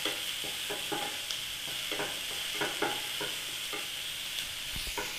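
Diced green capsicum sizzling in oil in a nonstick frying pan while a spatula stirs and scrapes it, in uneven strokes roughly twice a second: the capsicum being lightly sautéed.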